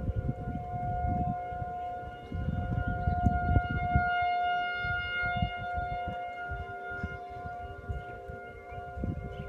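Outdoor tornado warning siren sounding one steady pitch, swelling in loudness about four seconds in. Wind rumbles on the microphone, heaviest in the first few seconds.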